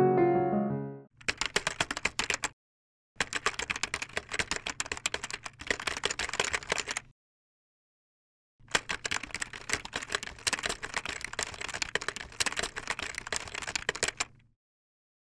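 Piano music fading out about a second in, then a typing sound effect: three runs of rapid key clicks, about one and a half, four and six seconds long, with dead silence between them.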